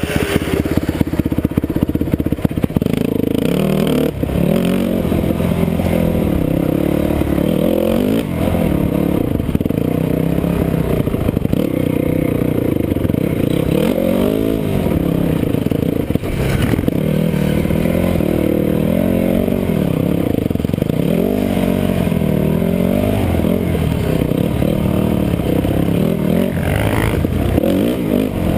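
Off-road dirt bike engine heard from on board, its revs rising and falling over and over as the rider works the throttle along a rough trail.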